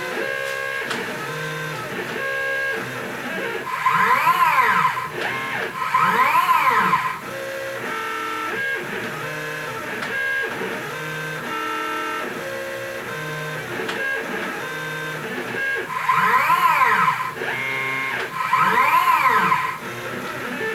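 Stepper motors of a home-built three-axis CNC machine driving its axes: a whine that holds one pitch for each short move and jumps to another pitch for the next. Four louder moves rise and fall in pitch as the motors speed up and slow down.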